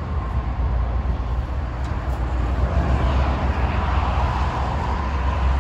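Mack medium-duty truck's Cummins 6.7-litre diesel idling with a steady low rumble, with a faint even whine alongside.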